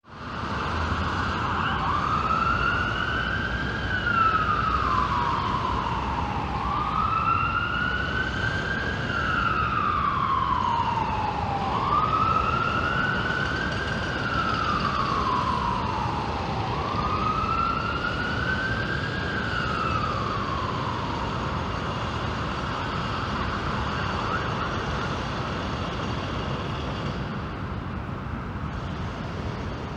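Emergency-vehicle siren wailing in slow cycles, each a quick rise followed by a long fall, four times over about twenty seconds before it stops. Steady city traffic hum runs underneath.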